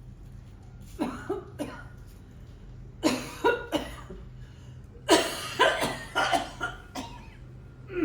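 A person coughing in three fits of several coughs each: a short fit about a second in, another about three seconds in, and a longer, harder run of coughs from about five to seven seconds in.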